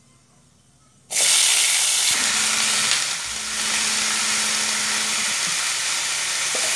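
Chopped bottle gourd and potato pieces sizzling loudly in hot oil in a kadai, a dense frying hiss that starts suddenly about a second in and holds steady.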